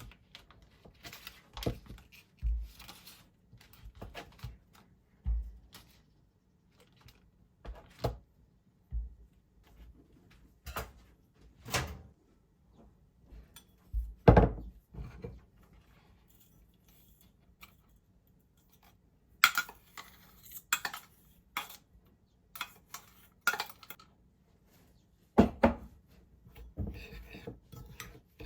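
Kitchen dishes and utensils knocking and clinking while cake ingredients are handled, as separate knocks at irregular intervals with a short, busier run of handling noise about twenty seconds in.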